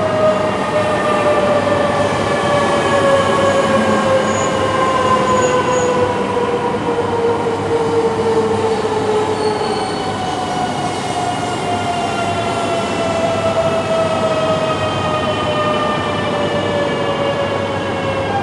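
E5 and E3 Shinkansen coupled train pulling in at low speed, its traction motors whining in several tones that slowly fall in pitch as it brakes, over a steady rolling rumble of the wheels.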